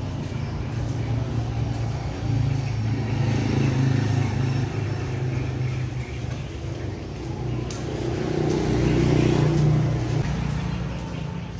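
A motor vehicle engine running, with a low hum that grows louder twice, about two seconds in and again around eight seconds in.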